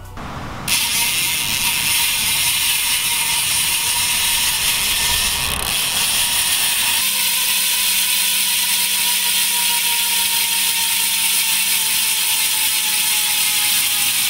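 Tall Order Drone BMX cassette hub freewheeling: the rear wheel spins while the driver stays still, and the pawls ratchet in a steady, fast buzz. It starts about a second in and drops slightly in pitch toward the end as the wheel slows.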